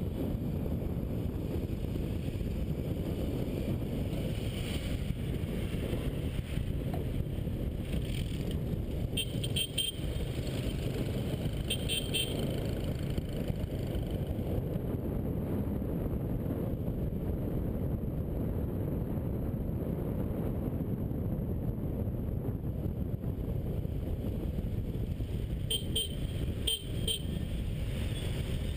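Steady low rumble of a motorbike riding through city traffic. Short horn beeps sound a few times: about nine and twelve seconds in, and three quick ones near the end.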